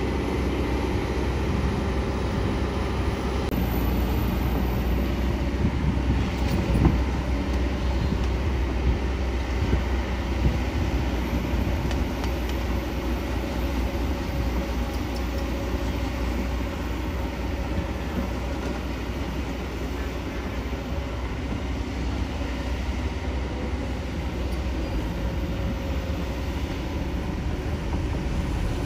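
Kobelco SK200 hydraulic excavator's diesel engine running steadily under load as it digs and lifts a bucket of mud, with a single sharp knock about seven seconds in.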